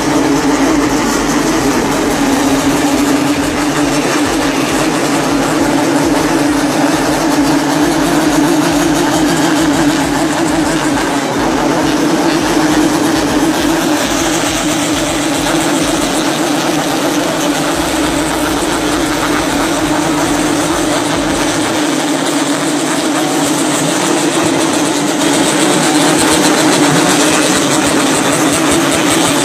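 Many Yamaha RX-King two-stroke motorcycles running together, a loud, steady mass of engine and exhaust noise.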